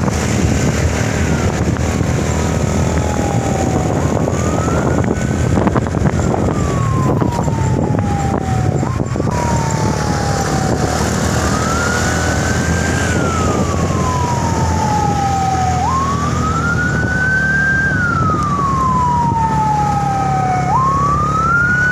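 Siren wailing, slowly rising and falling about every four to five seconds, over a steady vehicle engine hum.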